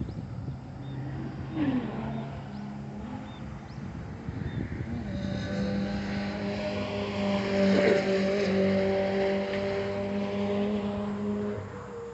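Car engine running at a steady speed, growing louder about five seconds in, with a brief rise in pitch early on, then cutting off abruptly near the end.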